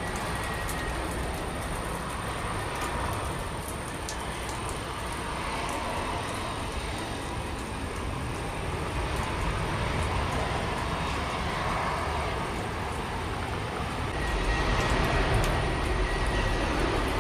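Airbus A320 jet engines running as the airliner touches down and rolls out along the runway. About fourteen seconds in, the sound changes to a Boeing 737-800's CFM56-7B engines at takeoff power on the takeoff roll, a louder and deeper roar.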